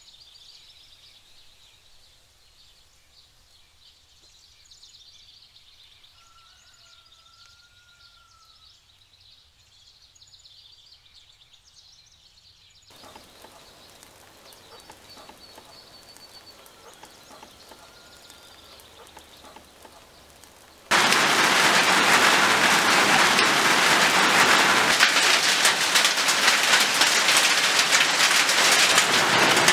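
Heavy rain falling and pouring off a roof edge, starting abruptly about two-thirds of the way in and staying loud and steady. Before it, only faint outdoor ambience with a couple of short bird calls.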